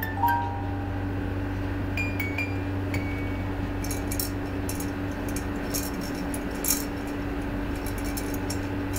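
Light clicking and clinking of a baby's plastic toys in a play cot, with a few tinkly musical-toy notes a couple of seconds in and a run of sharp clicks through the second half, over a steady low hum.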